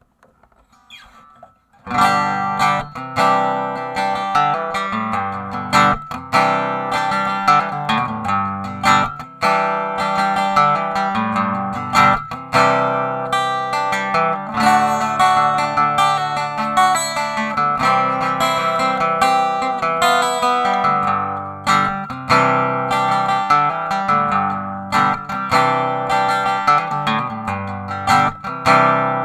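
Kay K6878 Leader archtop acoustic guitar played through its Sunyin SP-1001 transducer pickup, with chords and single notes. After faint handling sounds, the playing starts about two seconds in.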